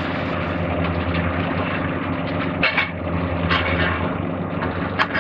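Diesel engines of demolition excavators running steadily, with a few short knocks or clanks from the demolition work.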